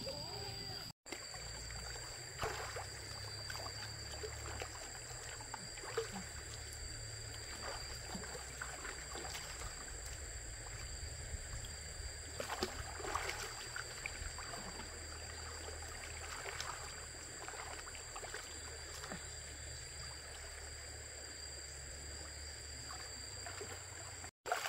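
Stream water splashing softly and irregularly around a child being bathed, over a steady high-pitched whine.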